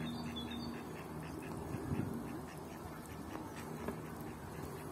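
Ducks and ducklings calling: a rapid, even run of short, high peeps, about five a second, that fade out after about three seconds. There is a low thump about two seconds in.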